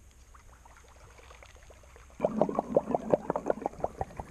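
A topwater lure being retrieved across a still pool, plopping and chugging on the surface in a rapid, even rhythm of about eight strokes a second that starts about two seconds in.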